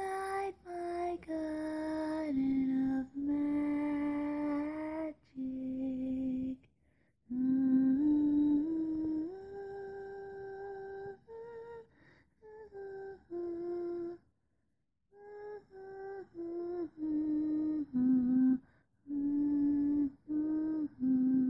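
A lone high voice singing a slow, wordless, lullaby-like melody without accompaniment. It holds one steady note at a time, with short breaks between notes and a longer pause about two thirds of the way through.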